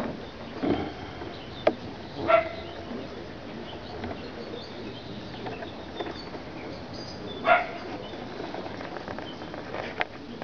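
A few short animal calls over a steady outdoor hiss: two clearer pitched calls, about two seconds in and again near the middle, and a few sharp clicks.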